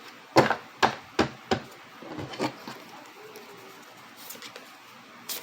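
Tarot cards being handled and laid down on a table: a quick series of sharp taps in the first two and a half seconds, then one more near the end.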